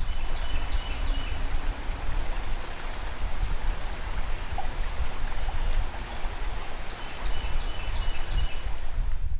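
River water rushing steadily, with a few short high chirps just after the start and again near the end.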